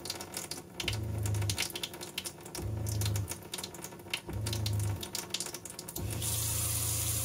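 Seaflo 42 Series automatic demand diaphragm water pump pulsing on and off, three short hums about a second and a half apart, while the faucet runs at a thin trickle; about six seconds in, as the flow is opened up, it settles into running steadily. Water trickles and spatters into the sink throughout.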